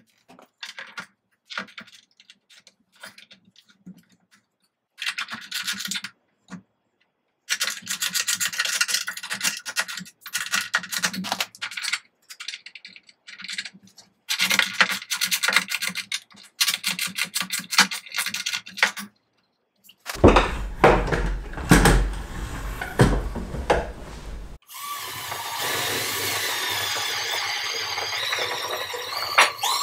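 Short spells of rubbing and scraping on a pine board, then a cordless drill with a paddle bit boring a countersink into the pine door. The drill runs steadily in the last few seconds and its whine rises at the very end.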